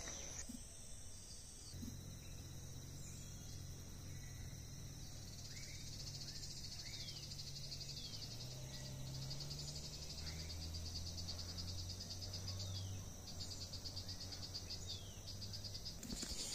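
Insects trilling steadily at a high pitch, pulsing rapidly. Short falling bird chirps come now and then, over a low steady hum.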